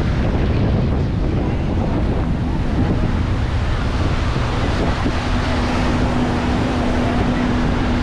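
Wind buffeting the microphone over surf washing onto the shore. About halfway through, a steady engine hum comes in and grows louder toward the end.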